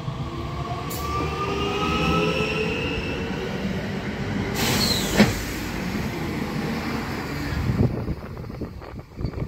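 A regional multiple unit train runs past with a steady rumble of wheels on rail. A faint rising whine sounds in the first few seconds, and a sudden hiss comes about five seconds in. Irregular clattering knocks follow near the end.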